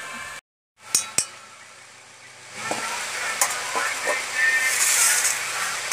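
Hot oil sizzling and frying in a steel pan, with clicks and clinks of a metal slotted spoon against the pan. After a brief dropout near the start come two sharp clicks, and the sizzle grows loud from about two and a half seconds in.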